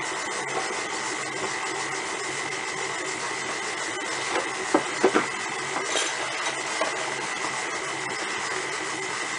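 KitchenAid stand mixer running steadily, its flat beater creaming butter, sugar and eggs, with a steady motor hum and a thin high-pitched whine. A few light knocks come about halfway through.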